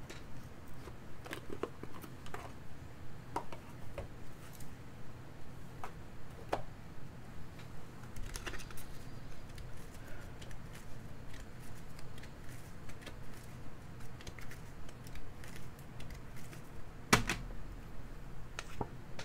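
Romance Angels oracle cards being shuffled by hand: a steady run of soft card clicks and rustles, about two a second. Near the end there is one sharper snap as a card is pulled out and laid down on the spread.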